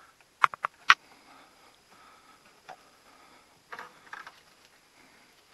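Three sharp clicks in quick succession about half a second in, followed by a few faint taps and rustles.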